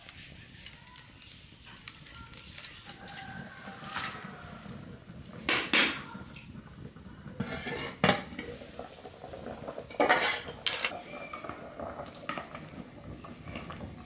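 A metal cooking pot, its lid and a cooking utensil clanking against one another. There are a few sharp, ringing clanks, about two-fifths of the way in, again just past halfway, and a cluster around two-thirds in, with lighter clinks of stirring in between.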